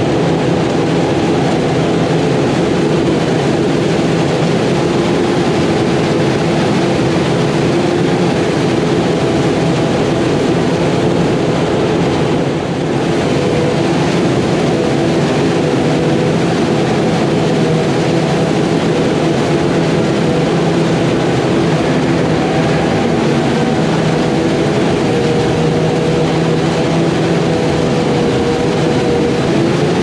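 Claas Jaguar self-propelled forage harvester running under load while chopping corn silage: a steady, loud machine drone over a dense rushing noise of crop being chopped and blown. It dips briefly about halfway through.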